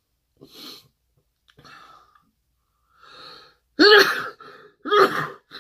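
A man sneezing into his hand: a few soft catching breaths, then two loud sneezes about a second apart.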